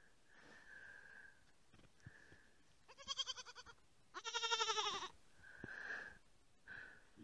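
Goat kid bleating twice: a short quavering bleat, then a louder, longer one about a second later.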